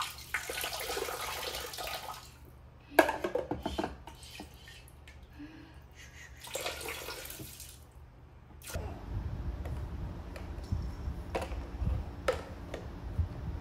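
Water poured from a cup splashing into a baby bathtub in a few spells, with one sharp splash about three seconds in. About nine seconds in it gives way to a low rumble with a few sharp knocks of plastic toys.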